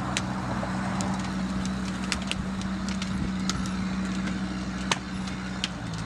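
Sherp ATV's diesel engine running steadily as it drags a cut tree across a lawn, with scattered sharp clicks over it; the engine note changes about five seconds in.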